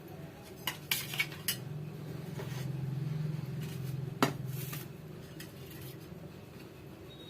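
A spoon clinking against a bowl while stirring dry rava and rice-flour coating: a quick run of clinks about a second in and one sharper knock a little after four seconds.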